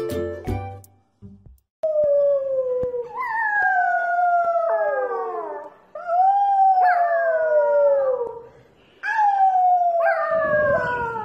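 Corgi puppy howling: three long howls, each sliding down in pitch with sudden breaks and jumps in the voice.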